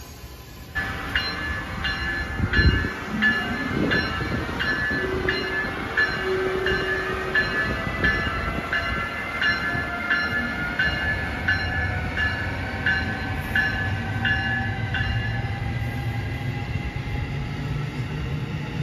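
Amtrak train with an ACS-64 electric locomotive passing, its bell ringing steadily at about two strikes a second and stopping near the end, as the low rumble of the passing train grows.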